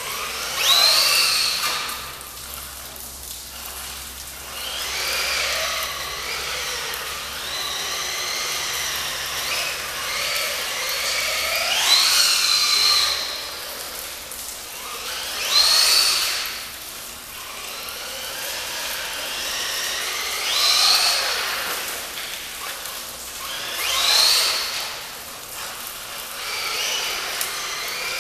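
Brushless electric motor of a WLtoys L212 Pro RC truck on a 2S LiPo, revving in repeated bursts. It gives a high whine that climbs sharply in pitch and drops away again, about five hard accelerations, with steadier whining between them.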